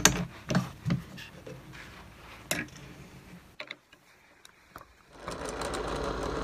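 Light metal clicks and knocks as a countersink bit is fitted into a drill press chuck, then the drill press motor starts about five seconds in and spins up to a steady running hum.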